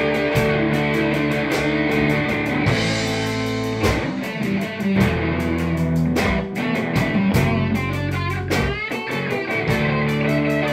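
Live rock band playing an instrumental passage: electric guitars and bass guitar over a drum kit, with a steady beat of cymbal strokes about four a second. Near the end a guitar note bends and wavers.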